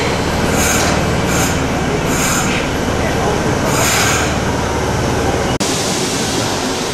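Subway train running on its track: a steady low rumble of wheels on rail under a noisy hiss, with short brighter hissy surges every second or so. About two thirds of the way in, the low rumble cuts off abruptly and a lighter, hissier noise carries on.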